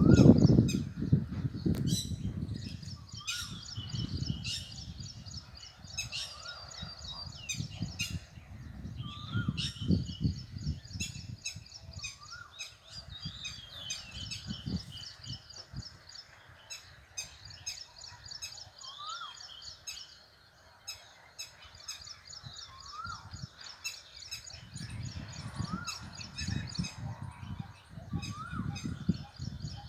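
Parrots calling: a short call that rises and falls, repeated about every two seconds, over continuous high-pitched chirping. Low rumbling noise comes in at the start and again near the end.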